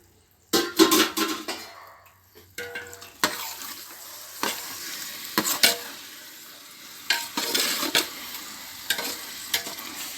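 Raw chicken pieces going into a pot of sizzling masala for biriyani and being stirred in. The spoon scrapes and knocks against the pot, with the loudest rush about half a second in.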